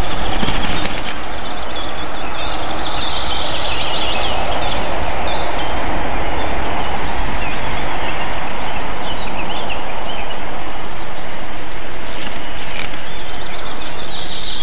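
Steady loud rushing noise, with two spells of high, scratchy chirping calls: about two to five seconds in, and again near the end.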